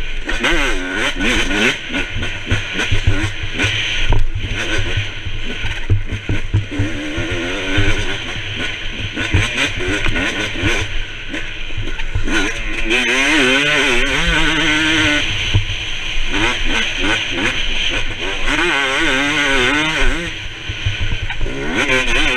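Motocross dirt bike engine revving hard at race pace, its pitch rising and falling again and again as the rider works the throttle and gears, over heavy low rumble and knocks from wind and the rough track on a helmet camera.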